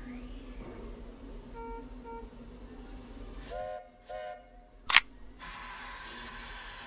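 A steam locomotive's chime whistle gives two short toots, then a single loud camera shutter click, with two short beeps a little before the whistle.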